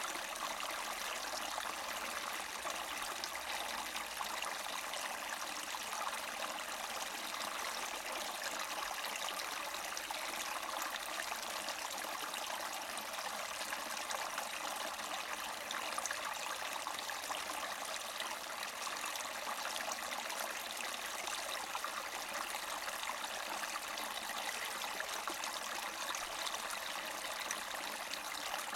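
Small spring-fed mountain brook gurgling steadily over rocks.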